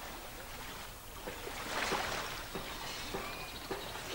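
Gentle water lapping and splashing on calm sea water, with small irregular splashes.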